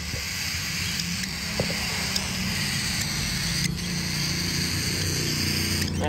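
Steady low mechanical hum with an even hiss above it and a few faint clicks.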